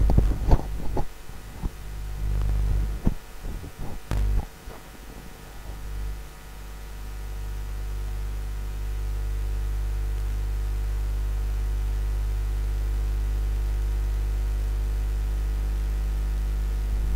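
Steady electrical mains hum, with a few scattered knocks and clicks in the first five seconds.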